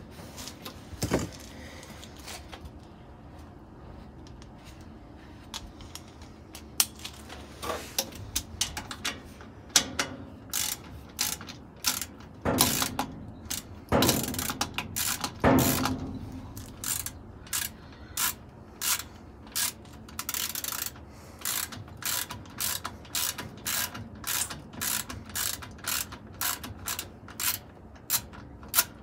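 A ratcheting hand tool clicking as a fastener at a washing machine's pump is worked loose, with a few heavier metal clunks about halfway through. In the second half the clicking settles into a steady rhythm of about two clicks a second.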